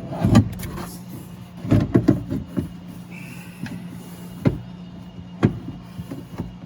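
Scattered knocks and clicks of a car door latch and lock actuator assembly bumping against the inside of the metal door shell as it is twisted around to get it out, over a steady low hum. The loudest knocks come near the start, around two seconds in, and a sharp one past four seconds.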